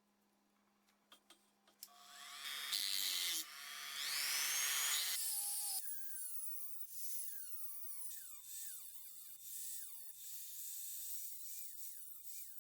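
Small high-speed power tool starting up about two seconds in and whining at high pitch. From about six seconds its pitch dips again and again as it works, as if pressed on and eased off.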